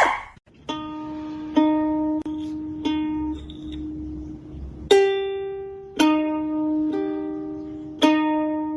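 Background music: a slow plucked ukulele-style melody, single notes about a second apart, each ringing and fading.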